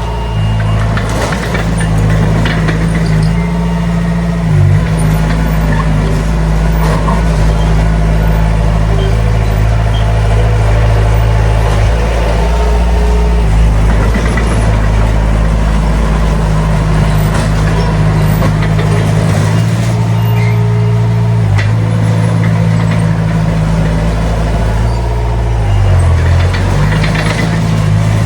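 Heavy diesel engine of earthmoving machinery running steadily under load, its pitch dipping briefly a few seconds in and again near the end.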